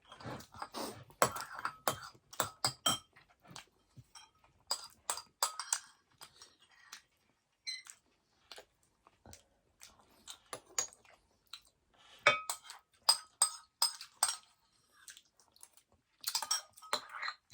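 Spoons clinking and scraping against bowls of rice porridge, with chewing between, in irregular clusters of short sharp clicks, some with a brief ring.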